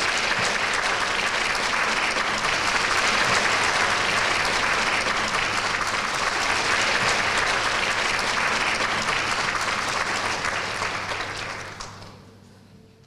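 Audience in a large lecture hall applauding steadily, with dense clapping that dies away near the end.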